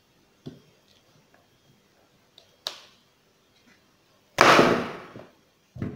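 Kitchen knife cutting through chunks of peeled raw cassava and knocking on a plastic cutting board: a few light taps, then a loud crunching chop about four seconds in and a shorter knock near the end.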